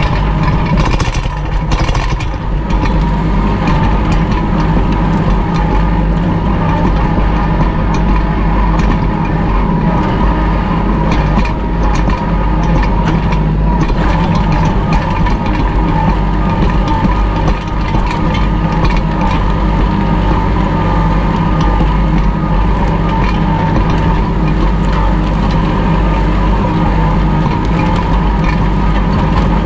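Kubota L2501 tractor's three-cylinder diesel engine running steadily under load, pulling a Landpride disc harrow whose steel discs cut and scrape through dry, grassy ground. A few sharper knocks come about a second in and again around the middle.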